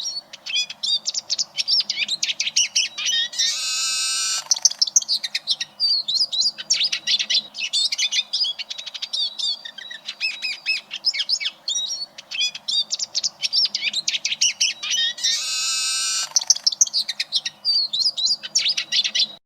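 Eurasian siskin singing a fast, continuous twittering song, broken twice by a long drawn-out wheezy note: once about three seconds in and again about fifteen seconds in.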